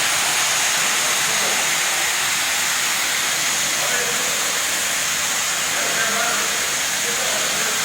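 Fully automatic carpet washing machine running with a steady, unbroken hiss.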